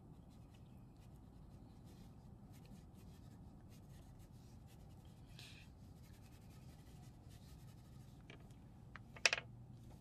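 Black wax crayon scratching on paper in quick, faint strokes as dark feathers are coloured in. A short, sharp, ringing sound about nine seconds in stands out as the loudest moment.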